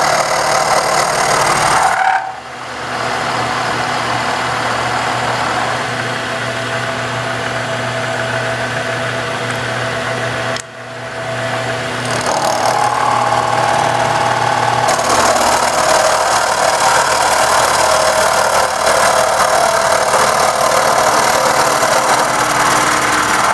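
Milling machine with a long end mill cutting the side of a laminated wood banjo neck heel: a loud, steady machine run with the cutter chewing through the wood. The sound drops briefly about two seconds in and again about ten seconds in.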